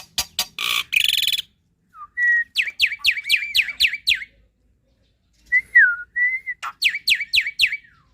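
Black-winged myna (jalak putih) singing a varied, chattering song: a rapid run of clicks, a harsh buzzy rasp, then clear whistles and two quick runs of repeated falling whistle notes.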